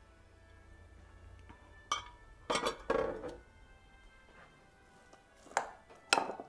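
A metal spoon and glass dishes clinking and knocking together: one knock about two seconds in, a cluster of clinks a moment later, and a couple more near the end, each with a short ring.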